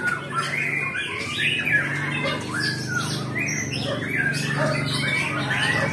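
Many caged songbirds singing and chirping at once, a dense overlap of short whistled phrases that rise and fall in pitch, with a low steady hum underneath.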